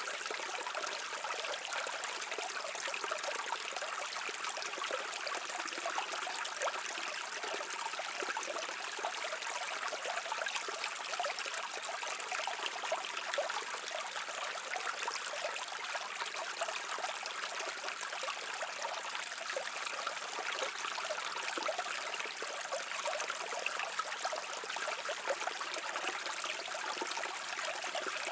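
A shallow stream flowing over rocks: steady babbling and trickling water with a fine bubbling texture and no deep rumble.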